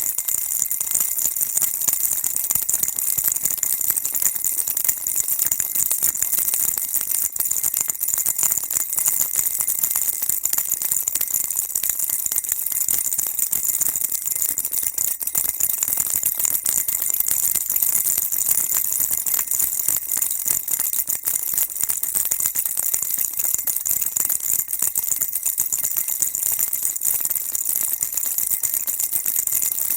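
Baby rattle shaken continuously: a dense, steady stream of small jingling clicks, bright and high-pitched, with no pauses.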